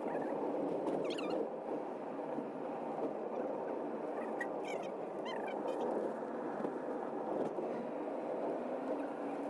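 Small birds chirping in short bursts, a few times, over a steady low background hum.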